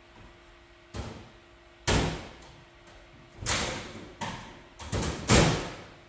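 About six knocks and thuds from metal storage cabinets being searched: doors and stored items banging as they are handled. The loudest comes near the end.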